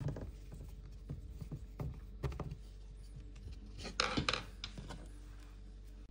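Hands handling a dishwasher temperature sensor and its plastic sump housing: a sharp click at the start, a few small knocks, then a short scraping rustle about four seconds in.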